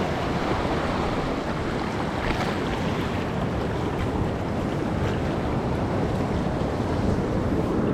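Steady wind buffeting the microphone over the wash of sea waves.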